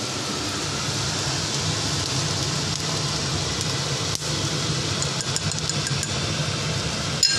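Kitchen extractor hood fan running steadily over the stove, a low hum with a hiss over it. A few light metal clinks of a spoon against the wok come from about four seconds in, with a sharper one near the end.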